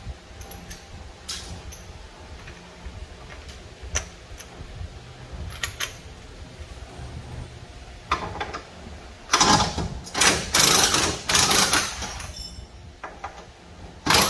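Cordless impact wrench run in several short bursts, about half a second to a second each, starting about nine seconds in, working on a suspension bolt that won't come out. Before that, a few light clicks of tools on metal.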